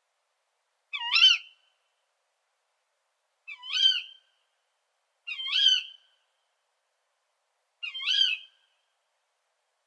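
Female tawny owl giving its sharp "ke-wick" contact call four times, each call about half a second long and rising in pitch at its start.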